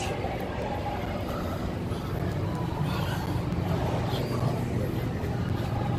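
A low, steady rumble of background noise, a little stronger from about two seconds in, with faint rustling of the camera against clothing.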